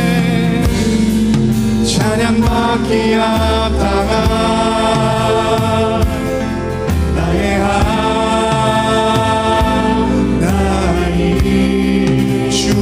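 Live worship band playing a praise song: several vocalists singing together in Korean over acoustic guitar, bass, keyboards and drums, with long held sung notes.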